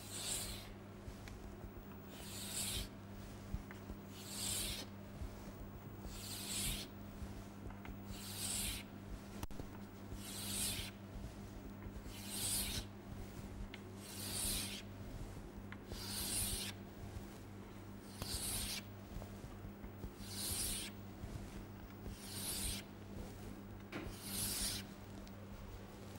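Chalk scraping down a chalkboard as long vertical lines are drawn one after another: about thirteen scratchy strokes, each about half a second long, roughly every two seconds, over a steady low hum.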